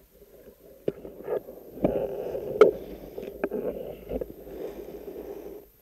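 Muffled underwater water noise as a spearfisherman swims, picked up through the camera's housing, with several sharp clicks and knocks.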